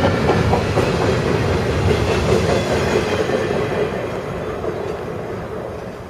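Double-stack container cars of a freight train rolling past, their steel wheels rumbling on the rails. The sound holds for about three seconds, then fades steadily as the end of the train moves away.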